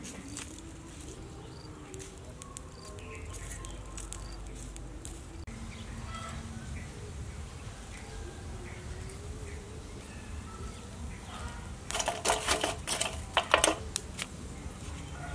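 Chunks of charcoal clattering and clinking as metal tongs pick them up and lay them on the coals, a quick run of sharp knocks about twelve seconds in.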